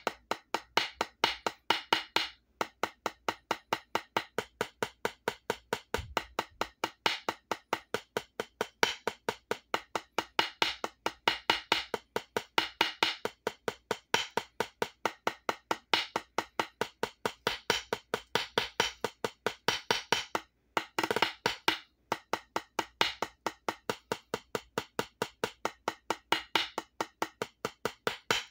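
Drumsticks playing an accent-tap warm-up exercise on a rubber practice pad. A steady stream of sharp, even strokes, with louder accented strokes recurring in repeating groups and a brief break a little past twenty seconds in.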